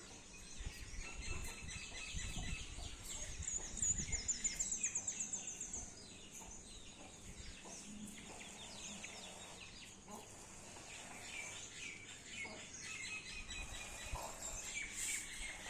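Morning bird chorus: several birds chirping and calling, with a quick run of high repeated notes about four seconds in.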